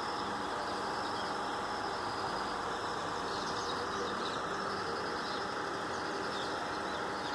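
A steady hum, engine-like, that does not change, with a few faint bird chirps about three to five seconds in.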